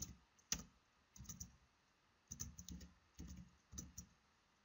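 Typing on a computer keyboard: faint keystrokes coming in short flurries with brief pauses between them.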